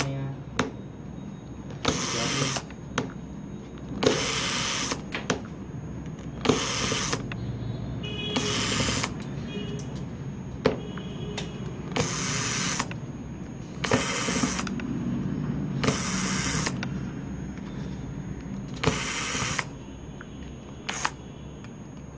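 Small cordless electric screwdriver spinning in about eight short bursts, roughly every two seconds, as it backs out the tiny screws of a smartphone's midframe, with light clicks in between.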